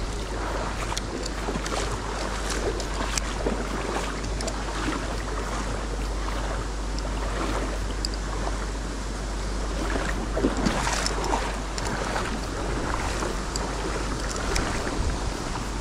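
Shallow river water running over stones, a steady rushing, with scattered small clicks on top.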